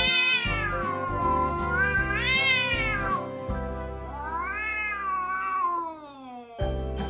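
Domestic cat yowling at another cat in a standoff: about three long, drawn-out caterwauls that rise and fall in pitch, the warning yowl of a cat about to fight. Background music with a steady beat plays underneath.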